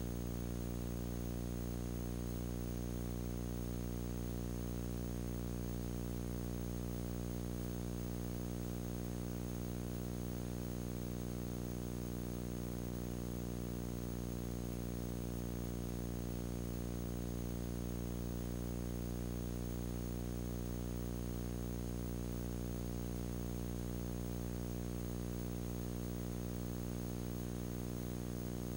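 Steady electrical hum with a stack of overtones under an even hiss, unchanging throughout. It is the kind of noise on the sound track of an old, otherwise silent videotape, with nothing heard from the scene itself.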